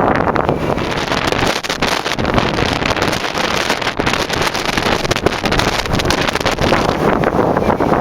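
Strong wind buffeting the microphone on the open deck of a moving cruise ship: a loud, gusting rush that rises and falls throughout.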